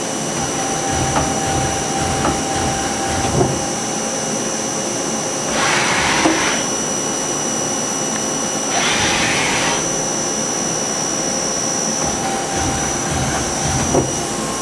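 Miyano LE-31 CNC lathe running under a test program, its spindle turning with a steady high whine and hum. A few short clunks come as the turret indexes, and about six and nine seconds in there are two rushing, hissing bursts about a second long as the machine moves.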